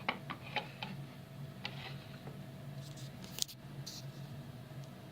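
A few short, light clicks and taps from handling a small circuit board, bunched in the first second with a couple of sharper ones about three and a half seconds in, over a steady low hum.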